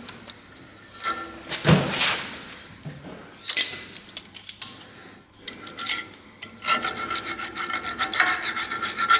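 Steel knife blade being scraped and rubbed along the edge of a steel bar to sharpen it: a few separate rasping strokes, then a quick run of short strokes over the last couple of seconds, with a faint metallic ring.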